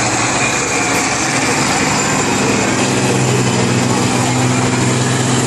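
Combine harvester diesel engines running steadily, with a constant low drone.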